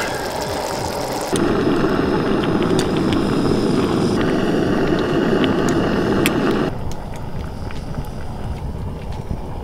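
Portable gas camping stove burner running steadily under a pan of boiling potatoes, with a few light clicks of a fork against the enamel pan. The burner sound starts abruptly about a second in and stops abruptly about seven seconds in, leaving a quieter background with faint crackles.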